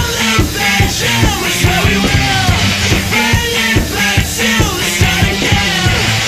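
Loud rock music with a sung vocal over a driving drum beat and heavy bass.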